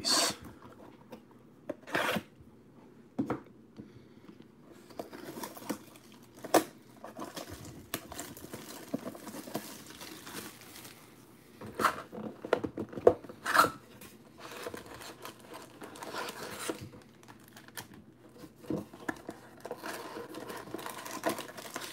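Plastic shrink wrap being torn and crinkled off a cardboard trading-card hobby box, with irregular sharp crackles and handling knocks. Near the end come the rustle of foil card packs being lifted out of the box.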